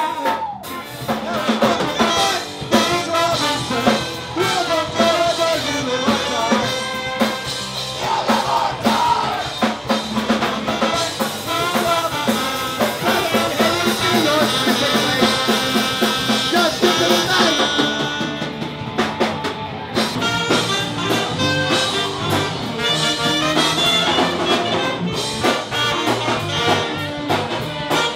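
Live band with saxophone and brass over drums and electric guitars, playing loudly and continuously, with a brief break in the sound just after the start.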